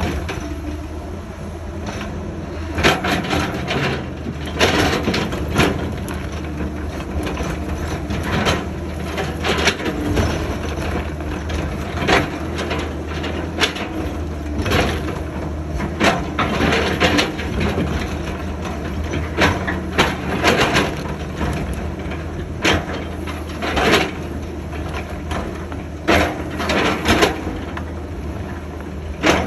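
Excavator working: its diesel engine runs steadily, overlaid by repeated loud crunching, cracking and clanking impacts, often in short clusters every second or two.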